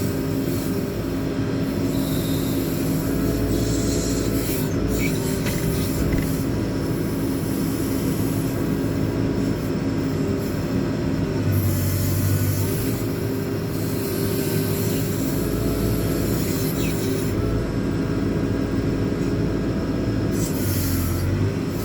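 JCB 4CX backhoe loader's diesel engine running steadily under load while the rear backhoe boom works its hydraulics, the engine note swelling and easing a few times.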